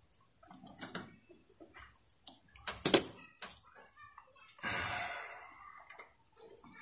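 Scattered small clicks and taps of handling wire and tools on a circuit board, with one sharp click about three seconds in, the loudest sound. Near the five-second mark a harsh, noisy sound lasts about a second.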